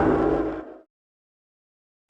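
Tail of a custom Godzilla roar, a blend of the 1954 Showa-era and Millennium-era roars, fading out and cutting off less than a second in.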